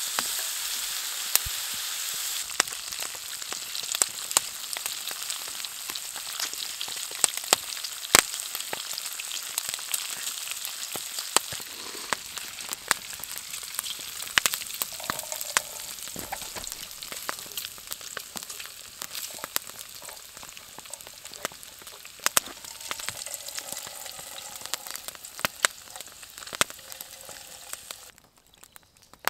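Diced fatty pork sizzling and popping as it fries in a frying pan over an open fire. The pan is tilted to pour off the rendered fat, and the sizzle slowly fades, dropping away sharply near the end.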